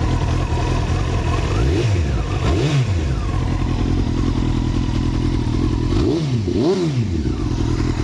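Honda CBR900RR Fireblade's inline-four engine idling through an aftermarket end can, its throttle blipped twice in quick succession about two seconds in and twice again about six seconds in, each rev rising and dropping straight back to idle.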